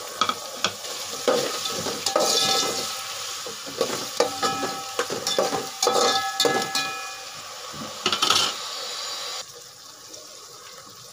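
Metal slotted spoon scraping and clanking against an aluminium pot as tomatoes, green chillies and peas are stirred, with the frying food sizzling. The stirring stops about a second and a half before the end, leaving a faint hiss.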